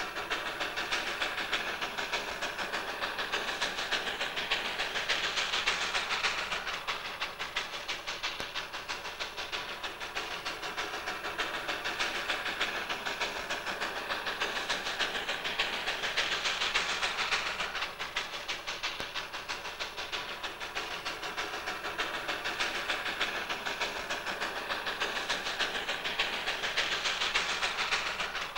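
Darjeeling Himalayan Railway narrow-gauge steam train running: a steady, noisy sound of exhaust and wheels that swells and fades about every eleven seconds.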